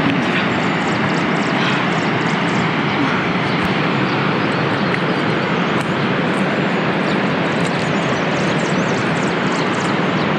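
A steady, even rushing noise at a constant loud level, with faint short high ticks or chirps scattered above it.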